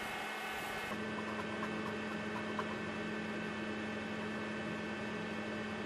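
Steady electrical hum made of several even tones, the lowest the strongest, shifting slightly about a second in.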